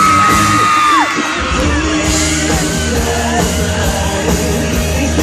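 Live pop-rock band playing through a concert PA with an audience shouting along. About a second in, a loud held high note slides down and stops, and the band carries on with a steady beat.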